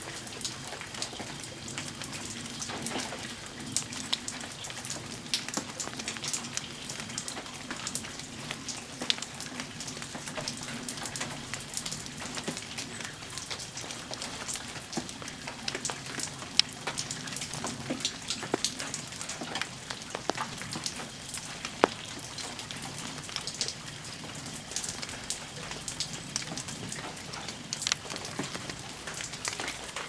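Rain dripping: an irregular patter of drops ticking onto nearby surfaces, over a faint low steady hum.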